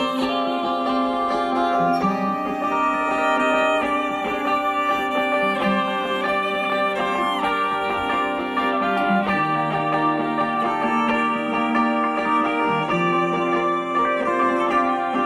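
Live folk music played loud through a stage PA: an instrumental passage of fiddle and plucked strings, with no singing.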